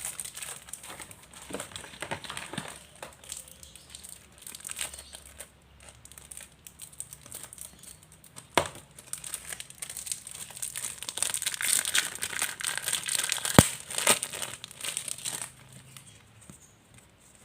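A package being opened by hand: its wrapping crinkling and crackling, with some tearing, getting louder and busier in the second half, with one sharp snap near the end.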